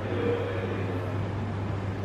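Steady low hum over a constant background haze of room noise.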